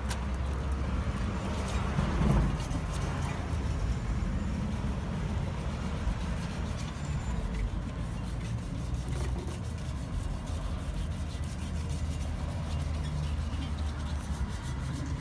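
Steady low rumble of vehicle traffic, with the scrubbing of wet sandpaper rubbed by hand over an aluminum wheel rim.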